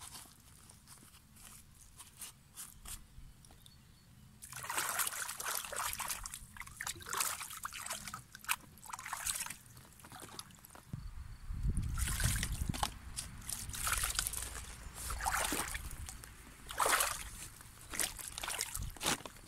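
Shallow pond water sloshing and splashing around rubber boots wading over a plastic pond liner, in irregular bursts that start a few seconds in.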